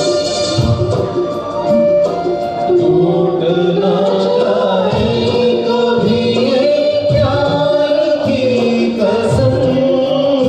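Music from a live performance of a Hindi film song: a held, slowly gliding melody over a steady low beat, with no words sung.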